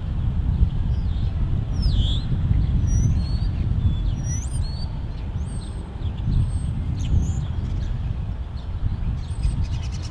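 Diesel locomotives running with a steady low rumble. Birds chirp and whistle over it in short rising and falling calls several times.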